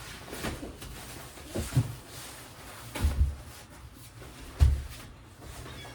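A few irregular dull thuds and knocks with some rustling, typical of materials being handled and set down on a work table. The loudest thump comes near the end.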